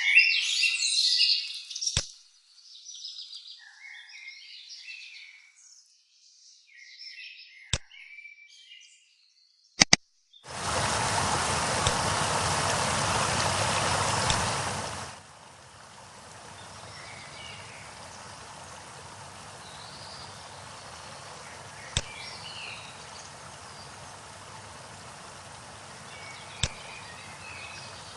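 Recorded nature sounds: birds chirping for the first several seconds, then a loud rush of water for about five seconds that drops to a quieter steady rush with faint bird calls over it. Sharp single clicks now and then.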